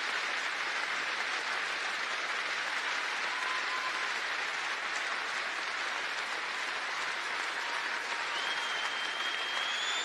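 Large arena crowd applauding steadily, with a thin whistle rising near the end.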